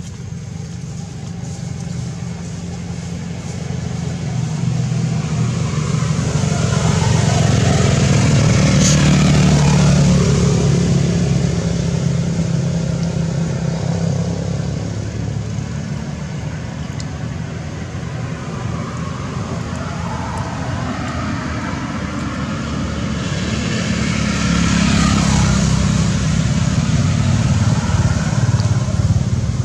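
Motor vehicles passing along a road, engine and tyre noise swelling up and fading away twice.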